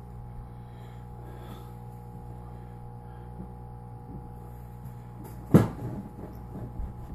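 A single sharp knock about five and a half seconds in, as a ceramic bowl strikes the table, over a steady low electrical hum.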